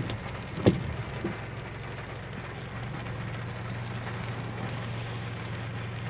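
Rain falling steadily, an even hiss. There is one sharp knock less than a second in, and a low steady hum from about halfway.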